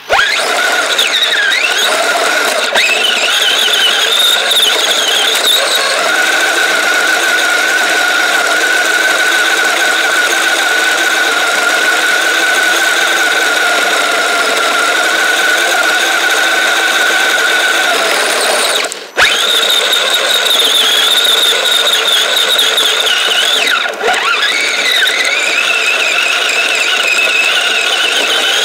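Kyosho Blizzard RC snowcat driving, its electric motor, chain drive and tracks making a steady high whine that glides up and down in pitch with the throttle, heard close up from a camera mounted on it. The whine cuts out for a moment about two-thirds of the way through, then picks up again.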